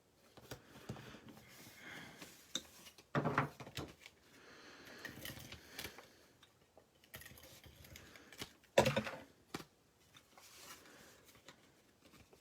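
Cardstock pieces being handled and pressed together on a work table: scattered light clicks and paper rustles, with two louder knocks about three and nine seconds in.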